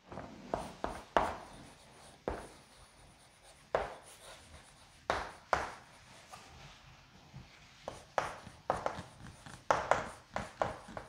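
Chalk writing on a blackboard: irregular short taps and scrapes as words are written out, coming more quickly in the second half.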